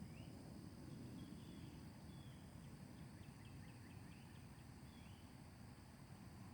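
Near silence: faint bird chirps over a low, steady background rumble. There is a rising call at the start and a quick run of short chirps around the middle.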